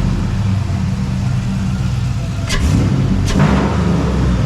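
2003 GMC Yukon's V8 running with a newly fitted S&B air intake, the engine sound swelling briefly about two and a half seconds in, with two short sharp hisses.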